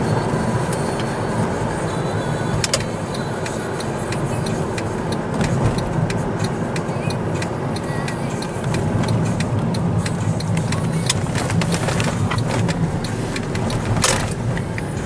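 Car cabin noise while driving: a steady low engine and road rumble heard from inside the car, with scattered light clicks and rattles and a sharper click near the end.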